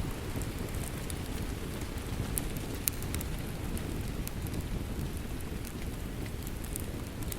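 Steady rain, a low even rush, with scattered sharp crackles and pops from a wood fire, the loudest pop a little before three seconds in.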